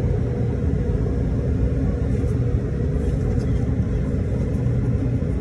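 Steady low rumble and hum of running machinery, with a few faint light clicks over it.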